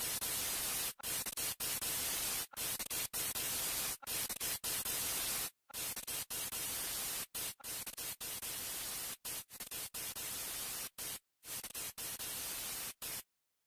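Steady hiss of static across the whole range, cut again and again by abrupt dropouts to silence, and cutting off for good near the end.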